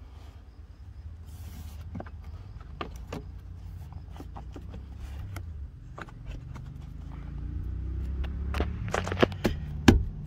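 Door sill guard being pressed down by hand into its clips: scattered clicks, then a quick run of loud snaps near the end as the tabs seat. A low rumble runs underneath.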